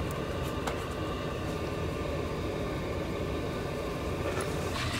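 Diesel air heater running on high: a steady whir and rumble of its fan and burner. A few faint light clicks from a spice jar being shaken over a pot.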